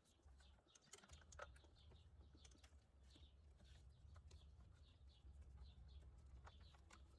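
Near silence, with faint scattered clicks and taps from handling spark plug wires and their plastic clips.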